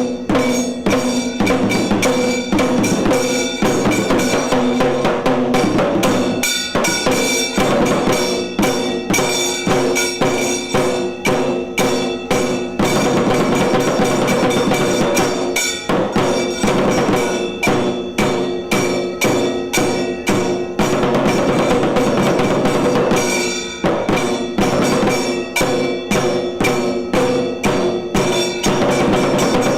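A Tiru Kailaya Vadya ensemble, the Tamil Shaiva temple percussion band, playing: fast, dense drumming and cymbal strikes over steady held tones. There is a brief dip in the playing a little past two-thirds of the way through.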